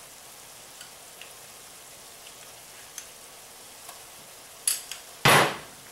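Ground beef and onions frying in a pan: a faint, steady sizzle with small pops. Near the end come a couple of sharp clicks and a louder short utensil clatter.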